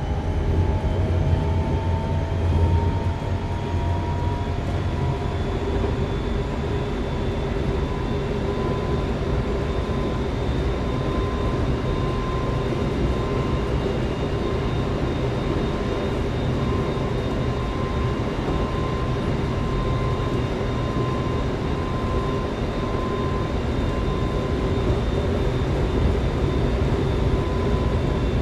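Semboku Rapid Railway 5000 series electric train running, heard from inside the car. The whine of its Hitachi GTO-VVVF inverter rises in pitch over the first few seconds as the train gathers speed, then steady tones carry on over the rumble of wheels on rail.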